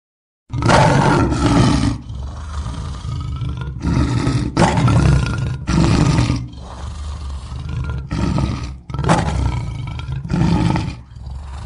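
Lion roaring: a series of loud roars in short repeated bursts, about one every second or so, starting about half a second in.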